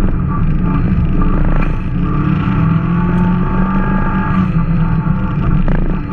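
Subaru engine heard from inside the cabin while driving on a snow-covered road. Its note rises and falls with the throttle over a constant rumble of tyres and drivetrain.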